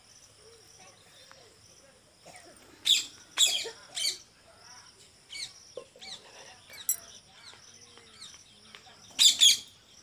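Rose-ringed parakeets screeching: loud, harsh calls in a cluster about three seconds in and again near the end, with quieter calls between. A steady high-pitched drone runs underneath.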